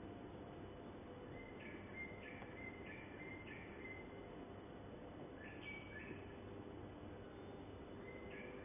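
Faint outdoor nature ambience: a steady hiss with short runs of high chirping notes, each note stepping down in pitch. The runs come about two seconds in, again near the middle, and once more at the end.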